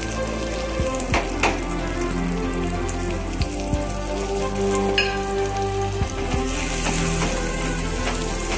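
Sliced garlic sizzling in hot oil and pork drippings in a pan, a steady frying hiss that grows louder about six seconds in, with a few light clicks.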